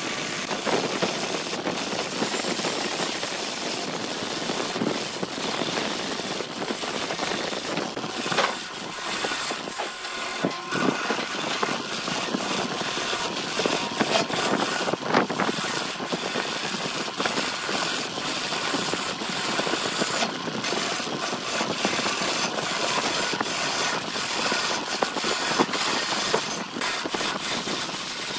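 Wood lathe running while a hand-held gouge cuts into a spinning segmented wooden blank: a continuous rough, hissing cut that rises and falls in level, with a few brief dips.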